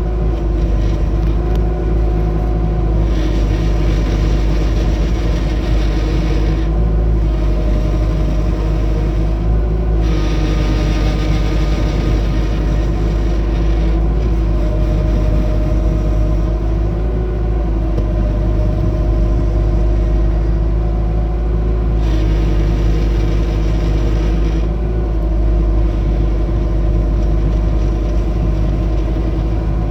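Bobcat T250 compact track loader running steadily with a heavy low rumble and engine hum. Three times a higher hissing whine comes in for a few seconds and then stops: this is the noise the loader makes when turning.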